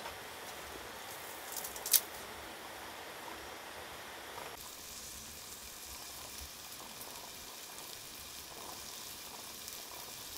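Pork belly, mushrooms and minari sizzling steadily in a cast-iron skillet, with a single sharp clink about two seconds in. Part way through, the sizzle turns thinner and higher.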